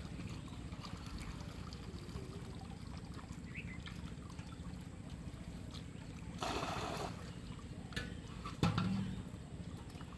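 Pond water trickling and sloshing, with a louder splash lasting under a second about six and a half seconds in. A brief low knock about eight and a half seconds in is the loudest moment.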